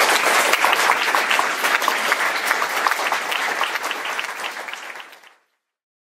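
Audience applauding, dying down and then cutting off abruptly a little over five seconds in.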